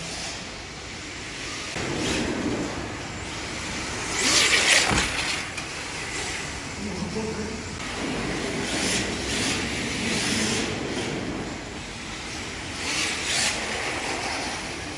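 Radio-controlled drift cars sliding through corners in tandem, their tyres hissing on the slick track surface in swells as they pass, the loudest about four seconds in, with people talking in the background.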